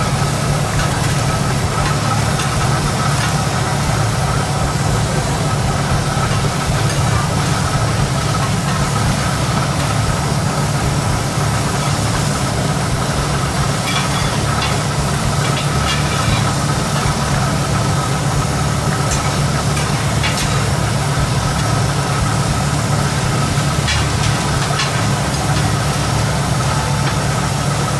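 A motor running steadily with a low hum and a thin, steady high whine, with a few sharp clicks through the middle and near the end.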